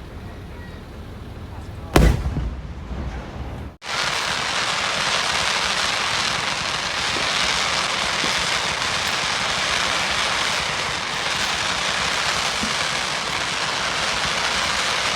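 A firework shell bursts with one loud boom about two seconds in, followed by a short rumbling echo. The sound then cuts off abruptly and gives way to a steady, even hiss.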